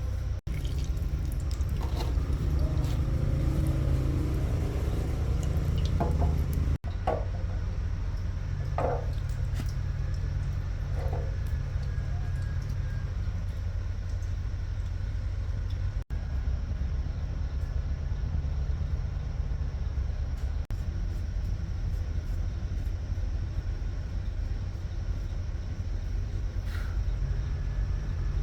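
A diesel engine running steadily with a low rumble, with a few short knocks a little past the quarter mark.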